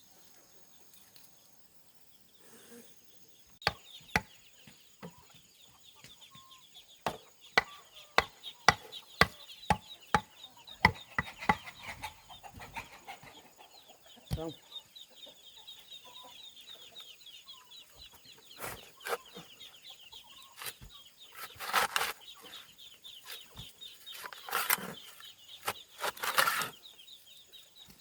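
Chickens clucking over a steady trill of insects, with a run of sharp knocks, one or two a second, through the first half, and a few louder rustling bursts near the end.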